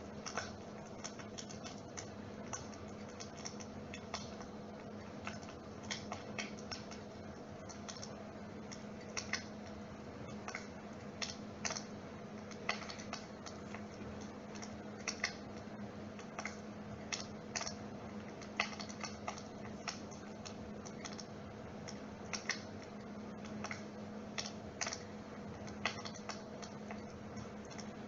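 Dimplex water-mist flame-effect fire running: a steady low hum with irregular crackling clicks scattered throughout, like a log fire's crackle.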